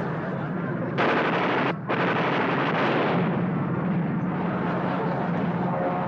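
Propeller plane's engine droning steadily, with a sudden loud rushing blast about a second in that cuts out for an instant and dies away over the next two seconds.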